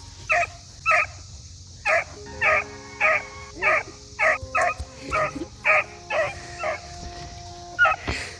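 A dog barking in a rapid run of short barks, about two a second, with a brief pause near the end.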